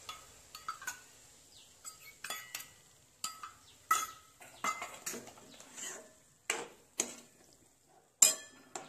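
Metal spoon stirring chopped vegetables in sauce in a metal wok: irregular clinks and scrapes against the pan, one or two a second, some with a short metallic ring, the loudest near the end.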